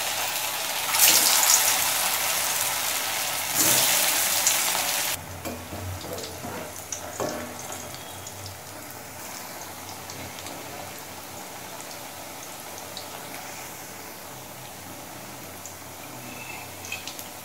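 Prawn and soybean kofta balls going into hot mustard oil in an aluminium wok. The oil sizzles loudly for the first five seconds, surging about a second in and again near four seconds, then settles into a quieter steady frying sizzle with a few light clicks of a metal spatula.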